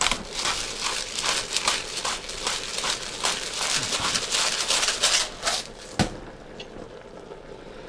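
Rustling and crinkling handling noise: a fast, uneven run of scratchy strokes, ending in one sharp click about six seconds in.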